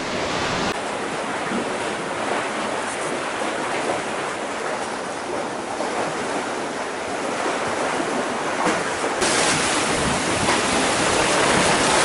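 Black Sea surf washing steadily against the shore, a constant rush. It turns brighter and louder about nine seconds in.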